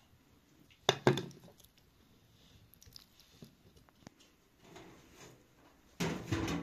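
Knife chopping raw chicken on a wooden cutting board: two sharp knocks in quick succession about a second in, then faint soft handling sounds. A louder, noisy clatter starts near the end.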